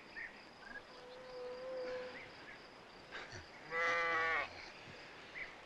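Sheep bleating: a faint, drawn-out call about a second in, then a louder, quavering bleat about four seconds in.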